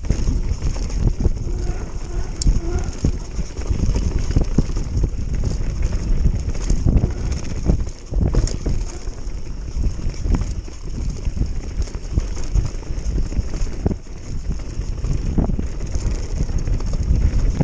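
Mountain bike descending a rough dirt trail at speed: wind buffeting the microphone, tyres rumbling over the dirt, and frequent knocks and rattles from the bike over bumps.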